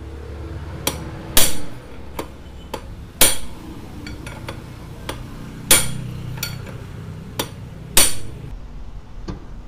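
Hammer blows, metal on metal, driving the lower steering head bearing out of a motorcycle's steering head. There are about a dozen sharp strikes: four heavy ones roughly every two and a half seconds, with lighter taps between.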